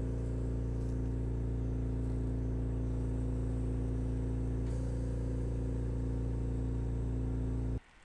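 Steady low mechanical hum, like a motor or fan running, with no change in pitch. It cuts off suddenly just before the end.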